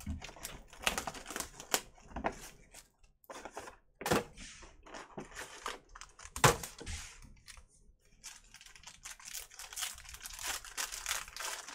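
Trading-card box and foil pack wrapper being handled and torn open: an irregular run of crinkles, crackles and sharp clicks, with two louder snaps about four and six and a half seconds in.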